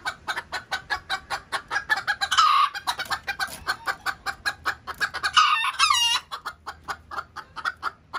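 Several bantam roosters clucking in a rapid, steady patter, with two louder crows cutting through, one about two seconds in and a longer one about five to six seconds in.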